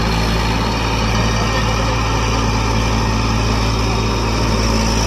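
Eicher tractor's diesel engine running steadily and loudly, with no change in revs.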